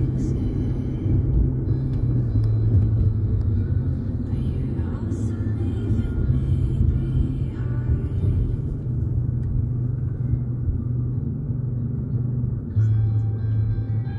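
Slow background music with long, low held notes that change every second or two, over the steady low rumble of a car driving on a road.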